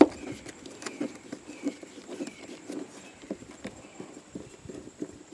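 Phillips screwdriver working screws out of a scooter's floorboard panel: a sharp click at the start, then faint, irregular small ticks and taps of the bit and screws.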